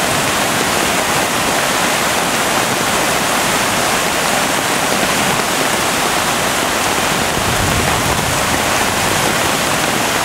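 Muddy floodwater rushing through rapids in a swollen stream: a steady, unbroken rushing noise.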